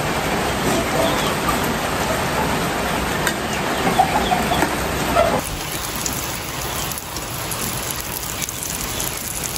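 Breaded mango pies deep-frying in hot oil in a wok, a steady sizzle. Chickens cluck in the background for the first five seconds or so; then the sound changes abruptly, leaving only the sizzle.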